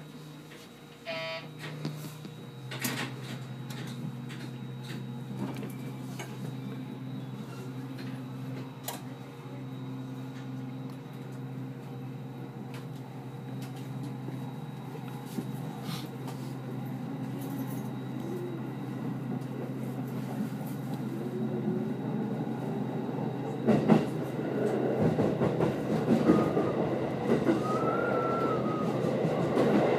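JR 811 series electric train heard from the driver's cab as it pulls away: a steady low hum with scattered clicks over the rail, then, late on, the traction motors whine rising in pitch and the wheel-on-rail rumble and clacking grow louder as the train gathers speed.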